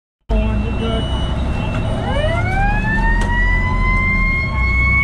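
Fire engine's siren winding up about two seconds in, its pitch rising quickly and then levelling off into a steady high wail, over the low rumble of the truck's engine and road noise.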